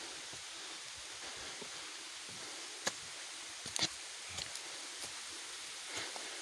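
Steady rush of falling water from a waterfall, with a handful of short sharp clicks in the second half.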